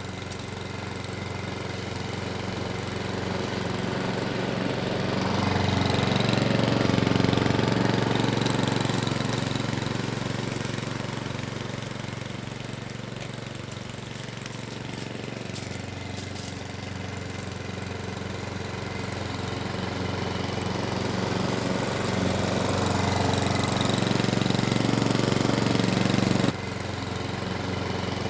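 Webb WER410SP petrol rotary lawn mower's 132cc four-stroke OHV engine running steadily, growing louder and softer by turns, with a sudden drop in level near the end.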